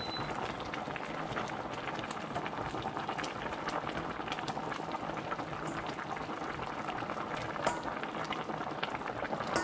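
Chicken and tamarind broth at a rolling boil in a stainless steel stockpot: a steady, dense crackle of popping bubbles. A couple of sharper clicks near the end come from metal tongs touching the pot.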